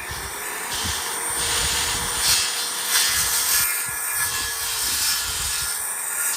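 Power saw cutting through pallet wood: a steady, loud cutting noise whose tone shifts a few times as the blade works through the board.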